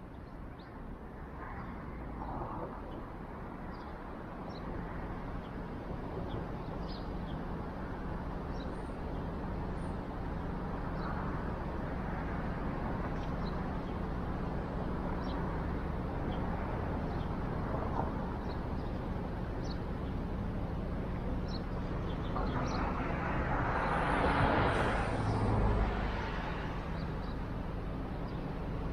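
Car driving through city traffic: a steady engine and road rumble with scattered faint high chirps. About three-quarters of the way in, a louder rushing swell rises and fades.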